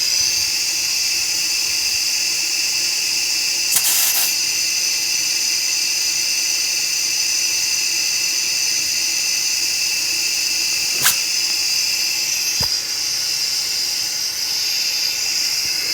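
Air compressor filling a freshly plugged car tire through its valve stem: a steady high-pitched whine and hiss of air flow, broken by a brief click about four seconds in and again about eleven seconds in.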